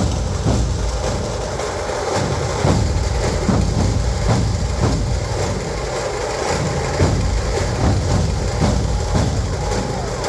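Dhol drums beaten in a steady rhythm, deep strokes repeating evenly.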